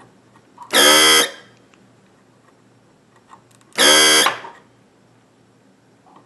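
Hakko 808 desoldering gun's built-in vacuum pump buzzing twice, about half a second each time, as it sucks molten solder off the old bridge rectifier's pins.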